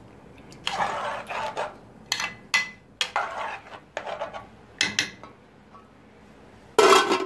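A metal spoon and a metal cooking pot clattering and scraping in a string of short bursts as rice is tipped into the broth and stirred, with the loudest clatter near the end.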